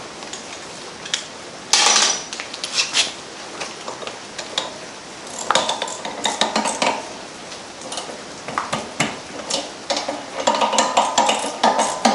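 Metal tools and engine parts clinking and clattering on a workbench while a small engine's flywheel and fan are fitted by hand, in irregular clusters with a loud clatter about two seconds in.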